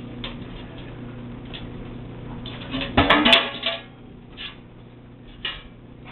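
Empty metal cans clattering and clanking as they are handled and shuffled about, with a burst of ringing metallic knocks about three seconds in and a couple of lighter clinks after.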